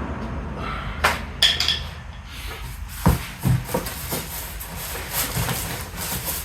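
Cardboard box and packing being handled during an unboxing: scattered knocks and thumps, several in the first four seconds, with rustling of cardboard between them.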